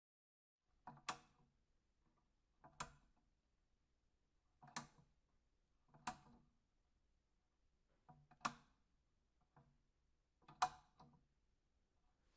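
Light switch being flipped again and again: about six sharp clicks spaced one to two seconds apart, each with a softer click just before it.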